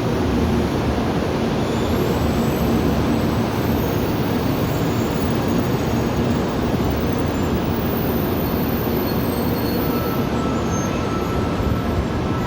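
Train running through the station, a steady loud rumble with faint high squeal tones.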